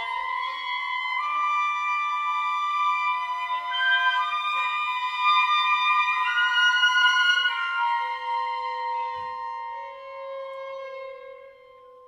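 Contemporary classical chamber quintet of flute, clarinet, piano, violin and cello playing layered high held notes that shift pitch in steps. The texture thins to one or two notes and fades toward the end.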